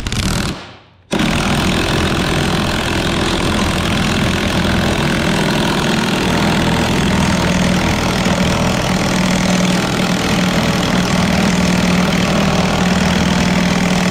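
Cordless impact wrench hammering steadily as it turns the screw of a C-frame ball joint press, pressing a new ball joint into a steering knuckle. It starts suddenly about a second in after a short blip and runs without a break.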